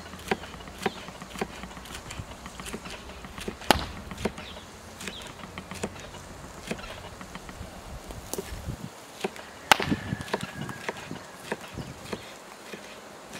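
Chef's knife slicing bell peppers on a wooden cutting board: irregular sharp knocks of the blade on the board, about one or two a second, with a louder knock about four seconds in and another near ten seconds.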